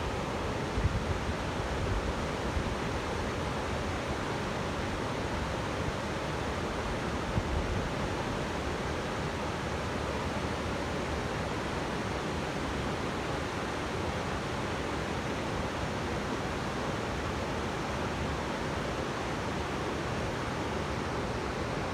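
Waterfall: a steady, even rush of falling water with no change in level. A few brief low thumps come about a second in and again around seven seconds in.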